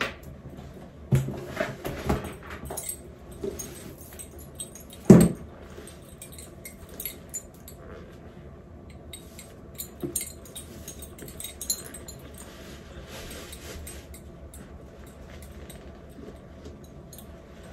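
Handling noises as a cotton dust bag is untied and opened: fabric rustling and light clicks, with metal bracelets jangling. One sharp thump about five seconds in stands out as the loudest sound.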